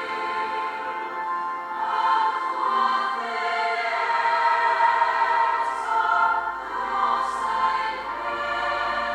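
Choir singing a Welsh hymn in sustained harmony.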